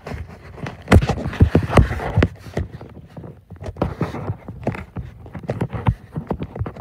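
Irregular knocks and rustling right at the microphone: a handheld phone being moved and bumped against clothing and bodies.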